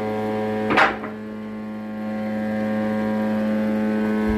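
Steady electric hum of workshop machinery, with many evenly spaced overtones, growing slightly louder after about two seconds. A short knock or rustle comes just under a second in.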